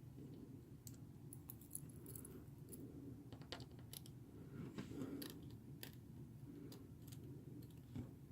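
Faint, irregular small clicks and taps of a precision screwdriver and tiny screws against a smartphone's frame as the back screws are driven in, over a low steady room hum.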